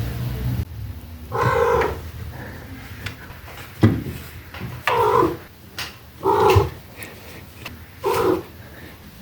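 Domestic cat making short "mrrrp" trills while asleep: four brief calls a second or two apart. A sharp click falls between the first and second calls.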